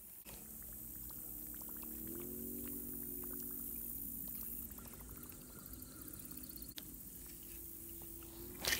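Fishing reel being cranked to retrieve a lure: a steady low whirring hum that steps up in pitch about two seconds in, with light clicks. A short, loud handling noise comes near the end.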